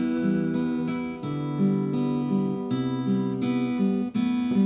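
Guitar strumming the song's chords in E minor. The chord changes about every second and a half.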